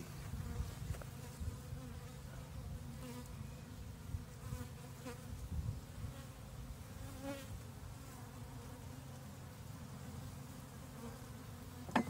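Honey bees humming steadily around an open hive, with a few faint knocks of wooden frames being handled.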